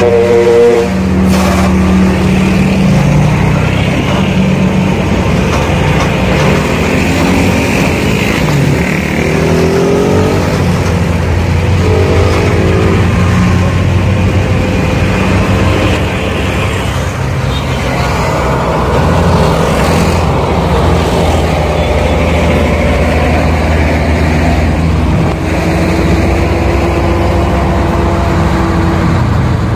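Heavy truck diesel engines running, revving up in a few rising glides about a third of the way in and again near the end.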